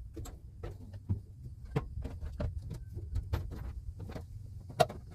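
Irregular metal clinks and knocks of a heavy trailer jack being handled and set in place, over a low steady rumble. One sharp knock stands out near the end.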